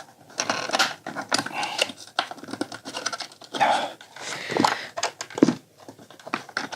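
Plastic parts of a projector being pried at and forced apart by hand: irregular clicks, creaks and scrapes.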